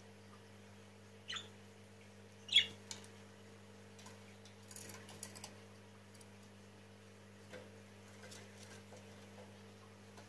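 Steady low hum of aquarium equipment, with two short high squeaks about one and two and a half seconds in, the second much the louder, and some faint light ticking a little later.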